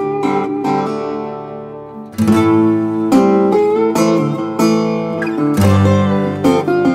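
Background music on acoustic guitar: a run of plucked notes that gets louder about two seconds in.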